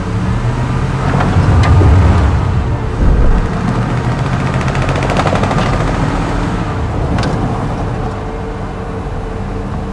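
A van's engine running as it drives over a gravel and dirt road, heard from inside the cab, with a few sharp knocks and a fast rattle from the road surface about halfway through.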